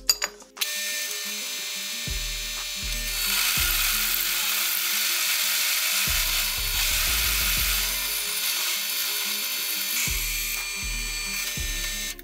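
Drill press driving a hole cutter through a steel plate: a steady metal-cutting screech with high ringing tones, starting about half a second in and stopping near the end, once the cutter is through and the hole is finished.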